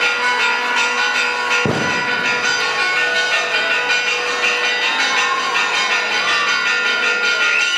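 A bell rung for the Grito de Independencia, struck once about two seconds in, its tones ringing on steadily throughout.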